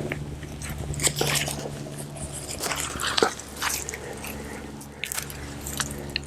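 Hands digging through loose garden soil to unearth sweet potatoes, making scattered crunches and crackles over a low steady hum.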